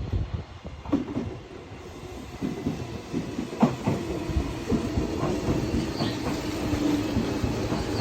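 Tobu 500 series Revaty electric express train moving along the platform, its wheels clacking over rail joints over a steady rolling rumble.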